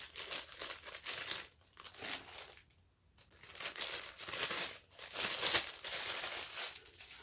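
Clear plastic packaging bag crinkling as it is handled and unwrapped, in irregular bursts with short lulls about one and a half and three seconds in.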